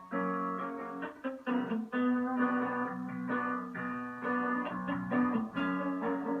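A guitar playing plucked and strummed chords in a steady rhythm, an instrumental passage between sung lines.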